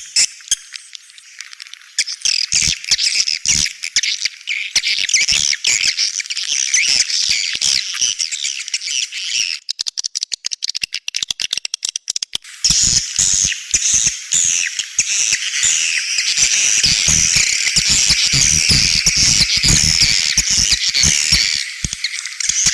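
Swiftlet lure call: the 'outside' sound played at a swiftlet house to draw the birds in, a dense stream of high, fast chirps and twitters. About ten seconds in the chirping gives way to some three seconds of rapid sharp clicks before it resumes, with low thumps beneath it later on.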